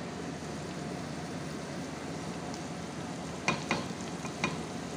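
Onion-tomato masala sizzling steadily in a pot on a gas burner as dry spices are tipped in from a plate. A few sharp clicks about three and a half to four and a half seconds in, as a wooden spoon scrapes the spices off the china plate.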